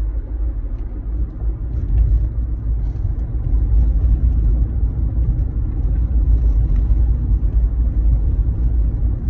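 Steady low rumble of a car in motion, heard from inside the cabin; it grows a little louder about two seconds in.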